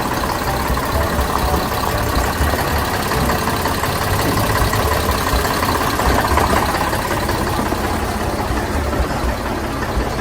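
An engine idling steadily with a rough, knocking low beat.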